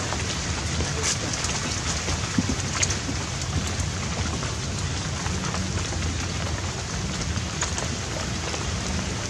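Rain falling steadily, an even hiss with a few faint taps and clicks.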